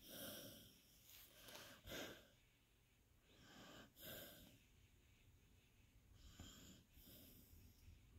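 Beagle snoring faintly in its sleep, slow wheezy breaths coming every couple of seconds.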